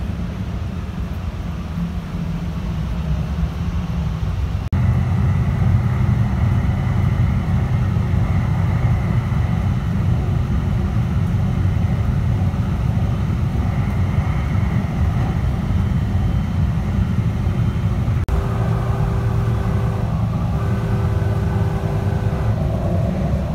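Inside a DART light-rail car running at speed: a steady low rumble of the wheels on the track and the car in motion. In the last few seconds, steady higher tones join the rumble.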